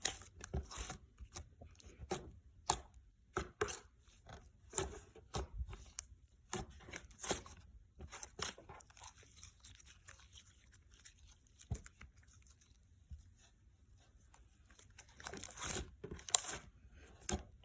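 Hands squishing and poking a sticky, clear jelly slime with little fruit slices in it: irregular soft clicks and pops that thin out for a few seconds in the middle before picking up again.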